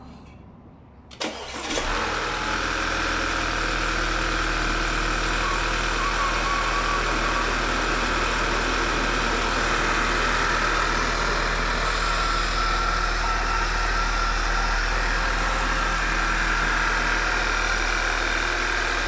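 Audi A4 B8's 2.0 TFSI turbocharged four-cylinder, just fitted with Audi R8 ignition coils, is cranked by the starter and catches a little over a second in. It then idles steadily.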